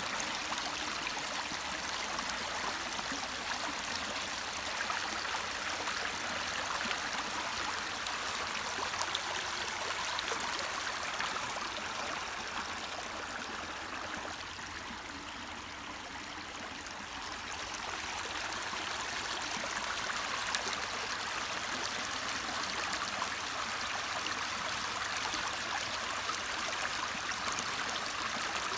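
A creek's flowing water rushing steadily; the creek is carrying water pumped out of a nearby quarry pit. It eases off slightly for a few seconds midway, then picks back up.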